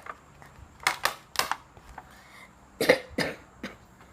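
Someone starting to eat a bowl of spicy instant noodles: a handful of short, breathy eating noises in two clusters, about a second in and near three seconds in.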